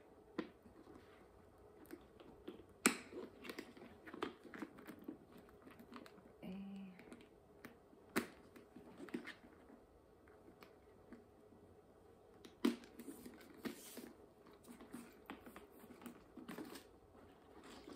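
Small irregular clicks and handling noise as the gold-tone metal clasps of a crossbody strap are worked onto a leather handbag's rings, with a few sharper clicks about three, eight and thirteen seconds in.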